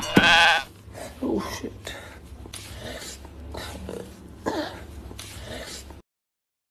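A man's voice: a loud, brief wordless exclamation just after the start, then quieter, broken non-word vocal sounds. The sound drops out to dead silence for the last moment.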